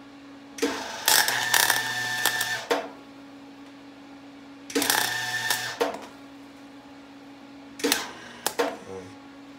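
An electric welder striking three short beads, each a crackling burst lasting one to two seconds with sputtering spikes. A steady hum from the machine runs in the pauses between beads.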